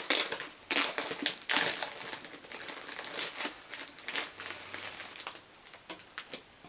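Wrapping crinkling as a small package is opened by hand: irregular crackles, busiest in the first couple of seconds, then sparser and fainter.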